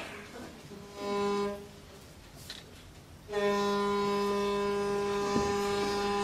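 Ship's horn sound effect played over the theatre's speakers: one short blast, then one long steady blast of about three seconds.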